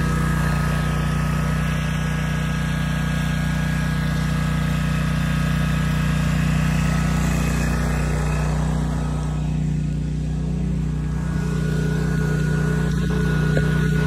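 Wright 32-inch stand-on mower's engine running steadily at an unchanging speed.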